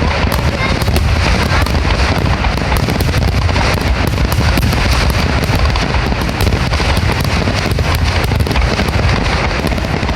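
Aerial fireworks going off in a rapid barrage, one crack and boom after another with no pause between bursts, with heavy low rumble throughout.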